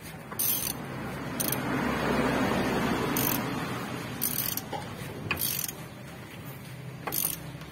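Socket ratchet wrench clicking in about six short bursts, a second or so apart, as it turns the nut on a new lower ball joint in a Mitsubishi L300's front suspension. A broad rushing noise swells in the middle of the clip and fades again.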